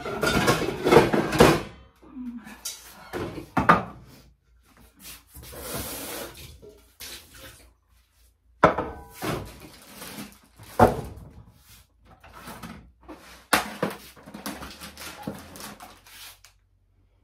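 Kitchen handling noises: a string of separate knocks and clatters of pots and dishes, with some rustling in between.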